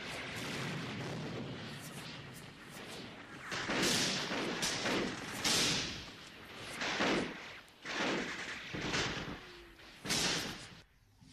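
Gunfire: after a few seconds of steady noisy din, a string of about nine loud, irregularly spaced shots.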